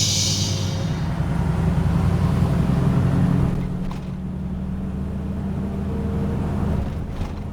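Vehicle engine droning steadily with road noise while driving, easing slightly about halfway through.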